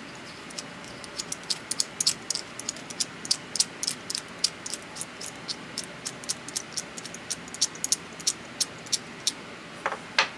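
Irregular light clicks and taps from handling a small Stillson pipe wrench, several a second, with two louder knocks near the end, over a steady hiss.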